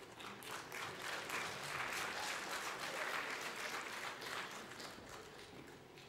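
Audience applauding, swelling within the first second and dying away near the end.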